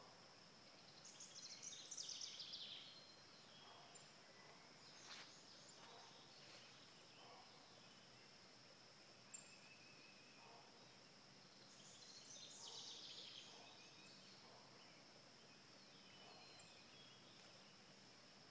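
Near silence: faint outdoor ambience with a steady high-pitched tone, and two short spells of distant bird chirping, one near the start and one past the middle.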